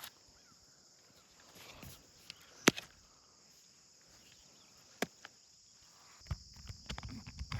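A steady insect chorus in a high band, with a sharp click about a third of the way in and another about two-thirds in. Near the end come a string of low thumps and crackles, like footsteps and handling.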